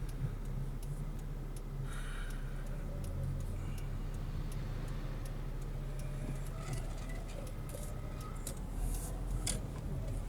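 Steady low in-car road and engine rumble on a 70mai Dashcam Pro's recording, with a regular ticking laid over it. The uploader ties this ticking or 'helicopter' noise to the dashcam's Wi-Fi being turned on.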